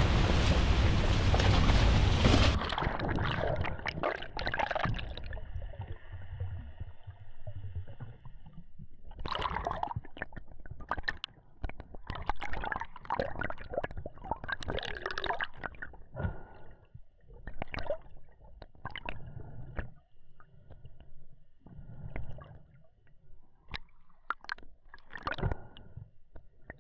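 Wind and waves buffeting the microphone for about the first two and a half seconds, then the sound cuts to muffled underwater gurgling and sloshing, with irregular swishes and clicks as water moves around the submerged camera.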